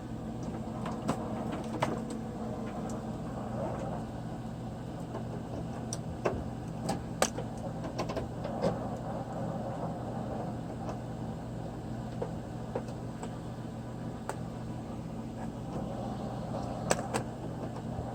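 Scattered small clicks and knocks of computer hardware and cables being handled, over a steady low electrical hum.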